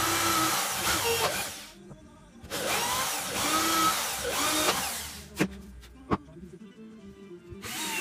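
Corded electric drill boring into a small wooden log slice in two runs of about two seconds each, its motor pitch bending up and down as the bit bites. Two sharp knocks follow, and near the end a cordless drill starts up.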